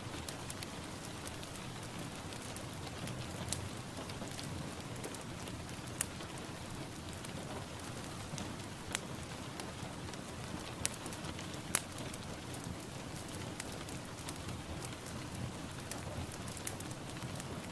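Steady rain falling, a constant hiss with scattered sharp drop taps a few times a second, one of them louder about twelve seconds in.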